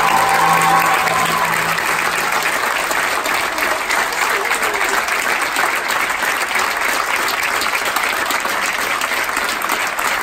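A large cinema audience applauding, dense and steady clapping throughout. The last of the film's music fades out in the first couple of seconds.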